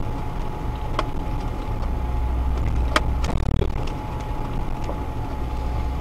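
Off-road 4x4's engine and drivetrain rumbling steadily inside the cab while driving a rutted dirt track, with a thin steady whine over it. Two sharp knocks, about a second and three seconds in, come from the bumpy ride.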